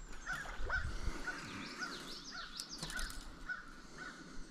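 A bird calling over and over, short calls about two a second, with thinner chirps from other birds and the steady background rush of the high creek.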